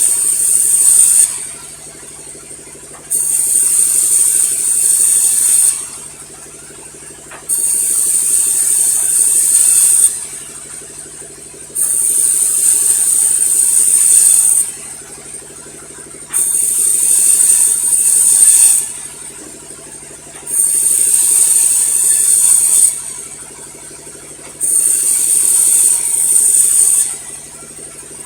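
Sawmill saw cutting timber in repeated passes. Each cut is a loud, high-pitched hiss lasting about two and a half seconds, starting roughly every four and a half seconds, over the steady hum of the mill's motor.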